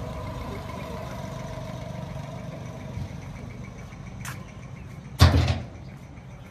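A vehicle engine idling with a steady low rumble, while a higher engine tone fades out over the first few seconds. A faint click about four seconds in and a single loud, short thump a second later.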